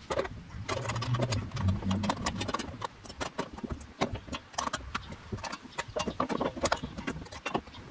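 Irregular metallic clicks and rattles of a hand wrench working the mounting bolts of a metal MOLLE storage panel as it is tightened down.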